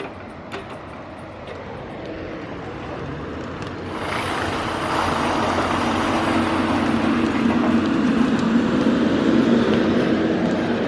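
A log delimber's diesel engine and hydraulics running, growing louder and revving up sharply about four seconds in, with a steady hum and a high hiss.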